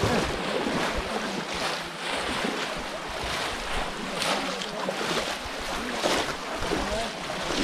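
Shallow muddy water splashing and sloshing as people wade through it and plunge bamboo cone fish traps into it, with a couple of sharper splashes and wind buffeting the microphone.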